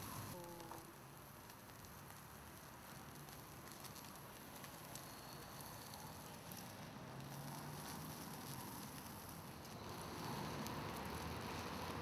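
Sausage and bacon sizzling faintly on the mesh grill of a disposable foil barbecue over hot charcoal, with scattered small crackles.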